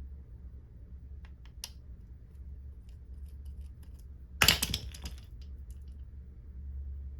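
Small metal parts and tools clicking on a workbench while screws are fitted to a small-engine carburetor's bottom plate: a few light ticks, then a short, sharp clatter about four and a half seconds in. A low steady hum sits underneath.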